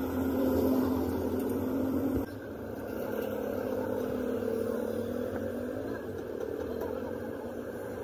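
An engine or motor running, its pitch wavering and sliding, with a sudden drop in level and change of pitch about two seconds in.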